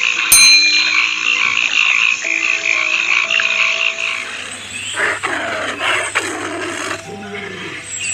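A frog chorus: a steady high trill with deeper croaks over it, and a short electronic chime about half a second in. About four seconds in the sound changes to a tiger's growls, with two strong ones about a second apart.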